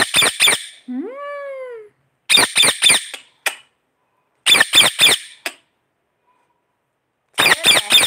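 Indian ringneck parakeet screeching in clusters of three or four short, harsh squawks, with one longer call that rises and falls in pitch about a second in. The calls stop for nearly two seconds before a last cluster near the end.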